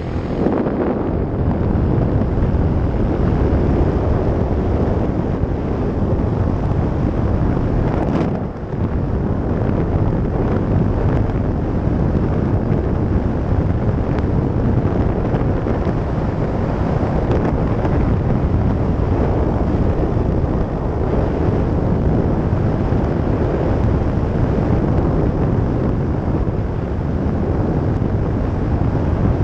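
Yamaha YS125 single-cylinder four-stroke motorcycle with a LeoVince aftermarket exhaust running steadily on the road, heard together with heavy wind noise on the helmet-mounted microphone. The sound dips briefly about eight seconds in.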